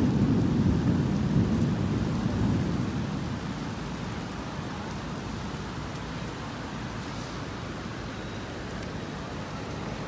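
Rumble of thunder, loudest at the start and dying away over about four seconds, over the steady hiss of heavy rain.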